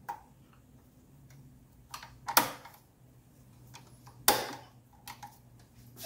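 Clicks and snaps from a Mercedes 300D's diesel throttle linkage being worked apart by hand, its ball-socket joints and Bowden cable being unclipped: a handful of short sharp clicks, the loudest about two and a half and four and a half seconds in.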